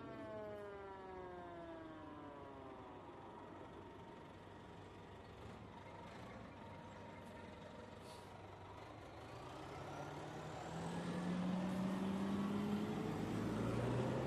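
Street traffic with emergency vehicles. A siren's wail falls in pitch and fades over the first few seconds. Later a heavy vehicle's engine grows louder and rises in pitch as it accelerates.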